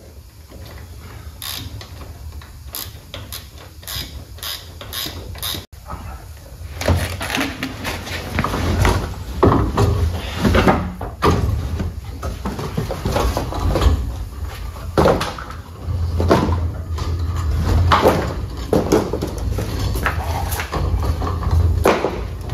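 Clicks, knocks and rattles of a metal mobile workbench being handled and assembled, irregular and growing busier after the first several seconds.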